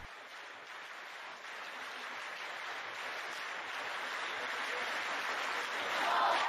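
A hiss of rushing noise that grows steadily louder, swells near the end and then cuts off abruptly: a noise riser used as an edit transition.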